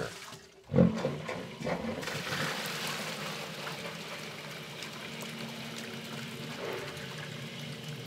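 Water splashing as a bucket is poured into the sump basin, then the submersible sump pump switching on and running with a steady hum as it pumps the water out, water rushing through the discharge pipe into a bucket. A test that the cleaned pump and its float switch work.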